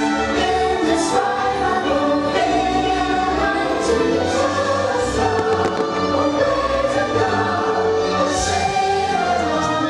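Fireworks show music over loudspeakers: a choir singing long held chords with orchestral backing, and a few short hissing bursts of the fireworks heard faintly underneath.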